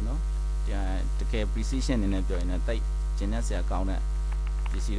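Steady low electrical mains hum on the recording, with a voice speaking on and off over it.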